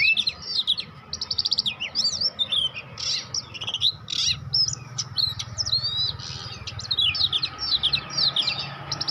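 Young oriental magpie-robin (kacer) practising its song: a rambling run of varied chirps, whistled swoops and quick rattled note series. It is a juvenile's practice song, the bird just beginning to learn to sing.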